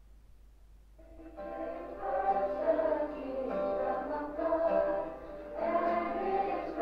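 A choir singing, several voices together, coming in about a second in after a brief quiet.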